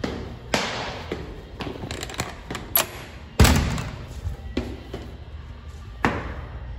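Toilet-stall door and its latch banging and clicking, several sharp knocks with the loudest about three and a half seconds in. Each bang echoes off the tiled walls and floor.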